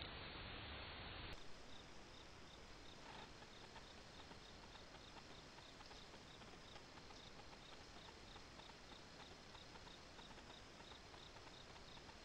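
A cricket chirping faintly and regularly, about three chirps a second, over a quiet hiss; for about the first second a louder hiss sounds before cutting off.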